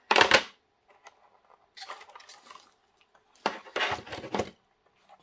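Rigid clear plastic model-train packaging being handled: a sharp plastic scrape and clatter as the inner tray slides out of its box, a softer rustle, then a second burst of plastic rattling and scraping a little over three seconds in as the model coach is taken out.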